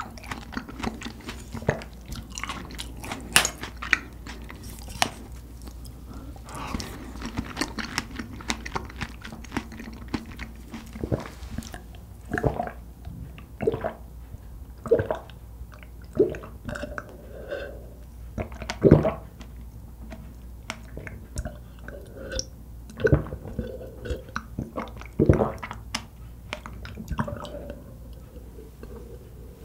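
Close-miked mouth sounds of eating whipped cream and Nutella off a spoon, with sharp wet clicks. From about the middle on, milk is gulped down from a glass mug, one loud swallow every second or two.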